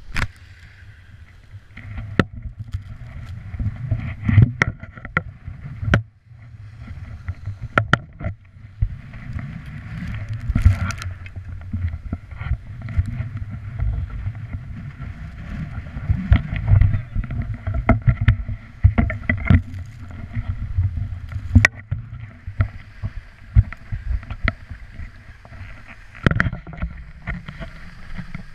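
Wind and motion rumbling on a GoPro's microphone as the skier moves down the slope, broken by a dozen or so sharp knocks and taps from the camera being handled.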